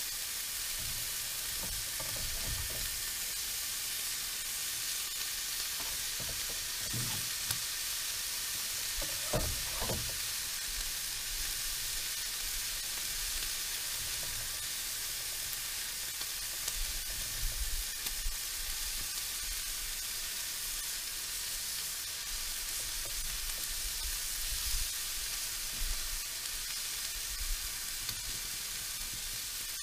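Brook trout pieces and shallot sizzling in a nonstick frying pan on a portable camp stove, a steady hiss of frying. Several low knocks from stirring come and go.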